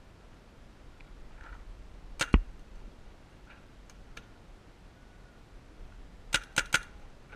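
Paintball marker shots: two sharp pops a little over two seconds in, then a quick burst of three pops near the end.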